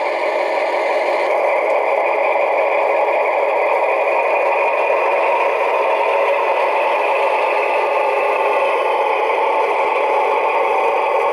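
Recorded DR V100 diesel locomotive engine sound running steadily, played by the Lenz O gauge model's DCC sound decoder through its small onboard speaker, so it sounds thin with no deep bass. It swells slightly over the first couple of seconds, then holds steady.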